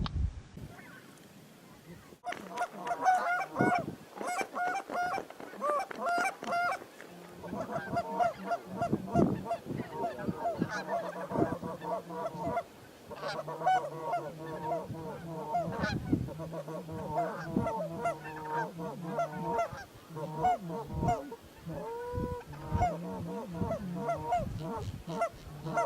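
Geese honking: many short calls overlapping, as from a flock, starting about two seconds in and going on without a break.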